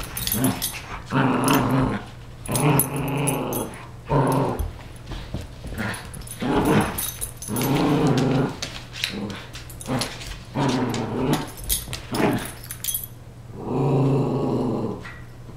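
Dog play-growling in repeated bouts of about a second each during a tug-of-war over a stuffed toy.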